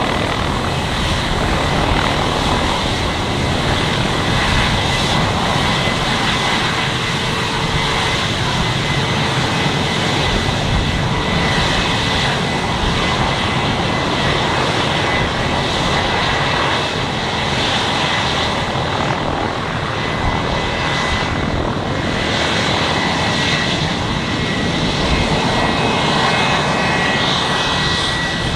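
Aircraft engine running steadily at close range, a dense even noise with a thin high whine held throughout.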